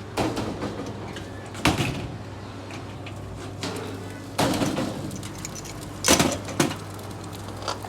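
Cookware being handled: several separate knocks and clunks, the loudest about six seconds in, over a steady low hum.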